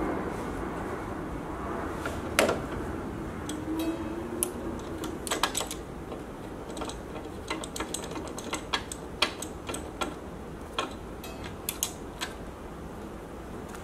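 Irregular light clicks and taps of small metal tools and parts being handled on a workbench, over a steady low hum.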